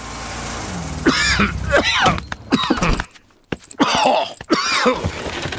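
A cartoon bear character, ill with a cough, groaning and coughing several times in short bouts.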